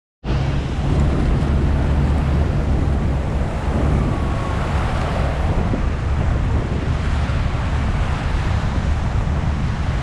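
Tour boat's engine running steadily under the rush of churning whitewater at the foot of the Rhine Falls, with wind buffeting the microphone.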